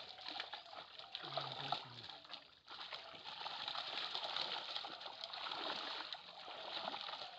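Water splashing and sloshing continuously, with many small splashes.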